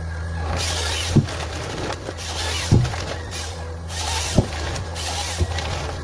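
Forestry harvester at work: a steady low engine drone, with a burst of high rushing noise about every second and a half, each ending in a sharp knock.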